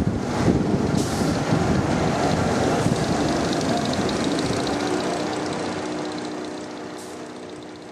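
Roller coaster train rumbling along its steel track, loud at first and then fading away over the last few seconds.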